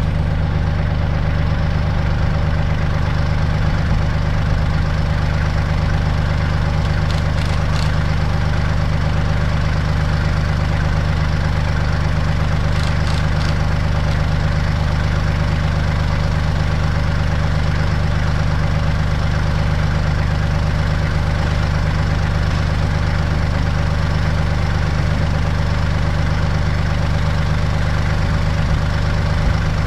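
Kubota L3800 tractor's three-cylinder diesel engine idling steadily, with a few faint ticks about a quarter and halfway through.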